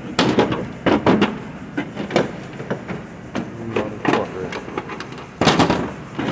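Metal tools and toolbox drawers being handled: an irregular run of clanks and knocks, the loudest about five and a half seconds in.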